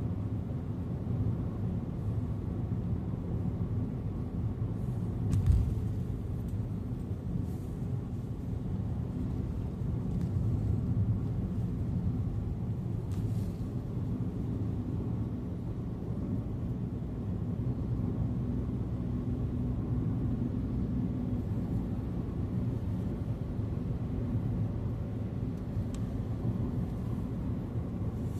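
Steady low rumble of a car driving on the highway, engine and tyre noise heard from inside the cabin, with a single thump about five seconds in.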